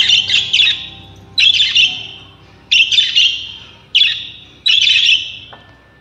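Caged pet parrots (budgies and cockatiels) chirping in short clusters of rapid high chirps, about five clusters roughly a second and a quarter apart.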